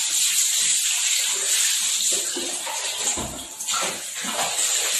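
Water poured from a plastic mug splashing over a wet cocker spaniel's coat and onto the tiled floor, a steady splashing that keeps going, with a low bump a little after three seconds in.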